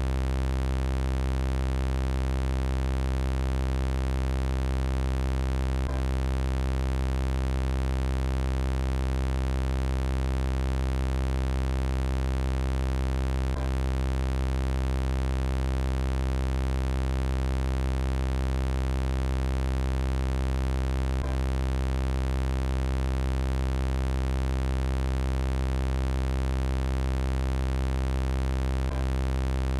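Synthesized robot-style sound effect: a steady low electronic buzzing hum with many fixed overtones, unchanging in pitch and level. A faint click comes about every seven and a half seconds where the loop repeats.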